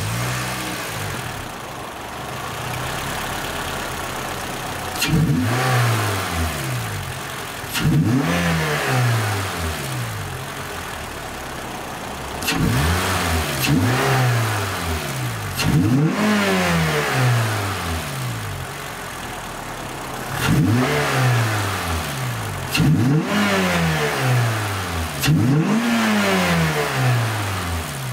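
Toyota Celica GTS's 2ZZ-GE inline-four idling with a freshly fitted K&N cold air intake, revved in seven sharp throttle blips. Each rev climbs quickly and falls back more slowly to idle, with the intake's induction noise loud in each rise.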